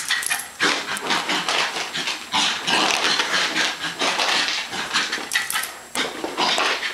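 A West Highland white terrier making quick, noisy, breathy sounds several times a second while excited at play.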